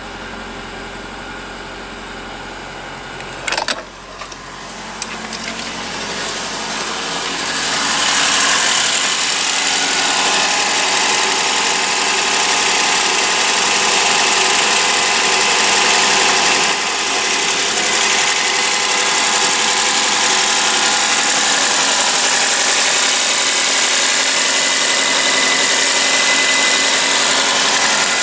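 Suzuki Swift Sport's 1.6-litre M16A four-cylinder petrol engine idling steadily, first heard faintly from the cabin and then louder up close in the open engine bay. A sharp knock comes about three and a half seconds in.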